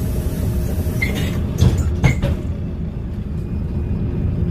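Inside a LiAZ 5292.22-01 city bus with a MAN E0836 natural-gas engine: steady engine and road rumble while driving, with two sharp knocks about a second and a half and two seconds in.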